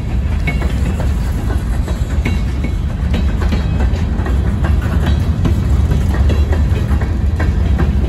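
Freight train of covered hopper cars rolling past close by: a steady heavy low rumble with irregular clicks and knocks from the wheels on the rails.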